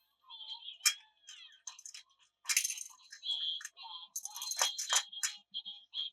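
Plastic toy pieces being handled: a run of sharp clicks, rattles and crinkly rustles, over a thin, high, tinny electronic tune.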